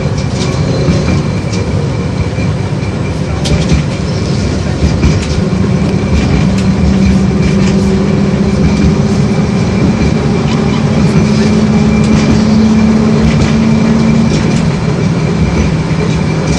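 LVS-86K tram running between stops: a steady rumble of wheels on the rails with scattered clicks, and a low motor hum that climbs slightly in pitch through the middle and falls away near the end.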